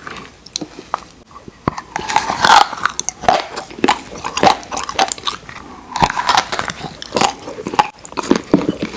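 Close-miked eating of Oreo ice cream: biting and chewing with crunches of cookie pieces, a string of short wet clicks that comes thicker twice.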